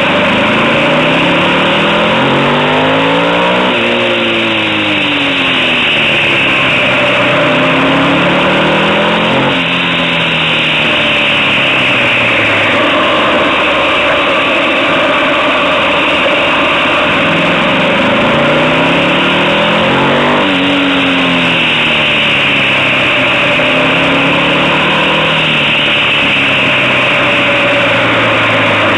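Motorcycle engine heard from on board, its revs climbing as it pulls out of bends and dropping away as it slows for the next, several times over, under a steady rush of wind and road noise.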